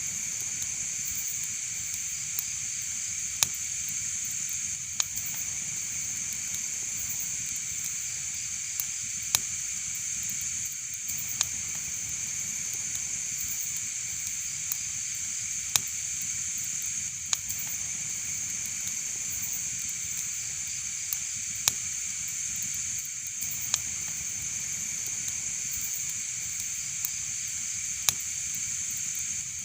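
Wood fire crackling: a steady high hiss with sharp pops at irregular intervals, roughly one every one to three seconds.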